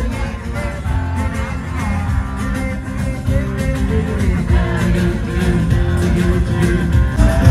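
A live band playing an upbeat song on acoustic and electric guitars with percussion keeping a steady beat.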